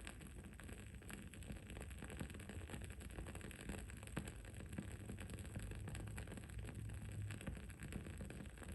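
Wood-wick candle crackling: many small, irregular pops and ticks over a faint, steady low rumble and hiss.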